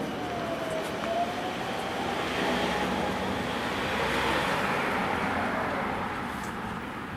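A car driving past close by: tyre and engine noise that swells to a peak about four seconds in, then fades as it moves away.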